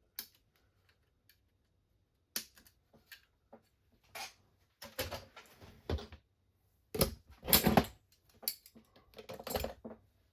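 Small plastic kit parts and tools being handled on a workbench: irregular clicks and clatters, with a few louder bursts of handling noise in the second half.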